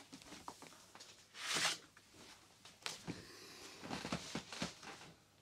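Rummaging through papers and small objects: a brief rustle about a second and a half in, then a scatter of soft clicks and knocks.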